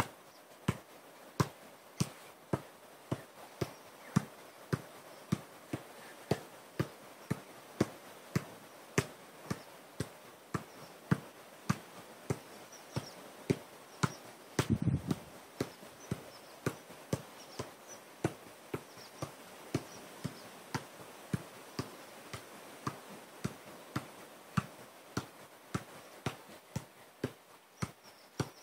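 Adidas Tango 12 football being juggled on the foot: a steady run of dull kicks at about two touches a second. About halfway through, a brief cluster of louder low thuds.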